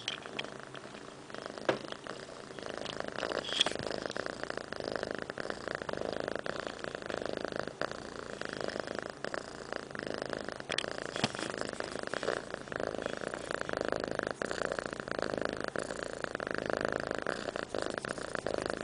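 A domestic cat purring steadily close to the microphone: a fast, continuous rumble that swells and eases in slow cycles with its breathing, with a few faint clicks.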